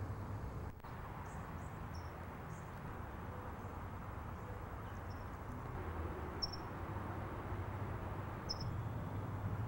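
Steady outdoor background noise with a low rumble, briefly dropping out about a second in, and a few short, faint high chirps scattered through it.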